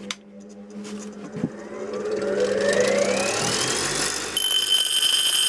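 Bench grinder with a coarse grinding wheel switched on: a low hum, then a whine that rises over about three seconds as the motor spins up, settling into a steady high whine at full speed.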